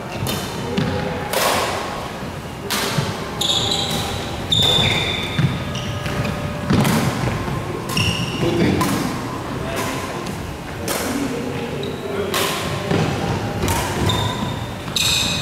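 Badminton doubles rally: rackets striking the shuttlecock about every second or two, with short squeaks of shoes on the court floor between the hits. The sounds ring out in a large hall.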